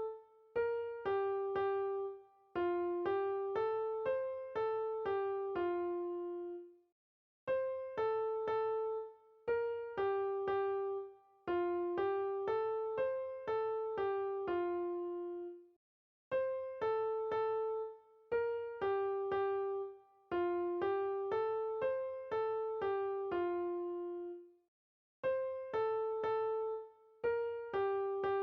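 Background music: a simple keyboard melody of short plucked notes, a phrase that falls to a longer low note and repeats about every nine seconds with a brief gap of silence between repeats.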